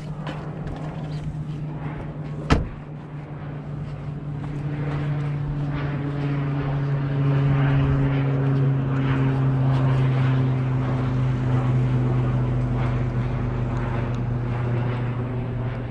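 Ford Ranger pickup's door slammed shut once, a sharp loud bang about two and a half seconds in. After it a steady humming drone rises in level and holds, sinking slightly in pitch.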